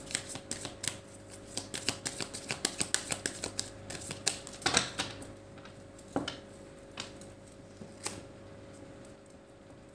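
A deck of Lenormand cards being shuffled by hand: a quick run of card flicks and clicks for about five seconds, then a few single taps about a second apart.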